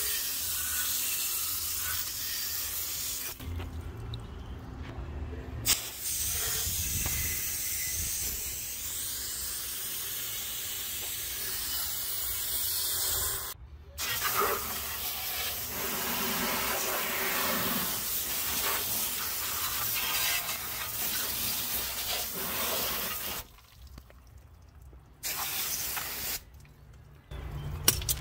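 Handheld hose-fed spray gun hissing as it sprays liquid, in long bursts broken by four short pauses.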